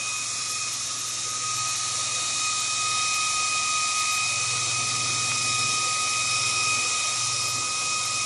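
Portable PCP air compressor running steadily: an even hiss with a steady high whine and a low hum.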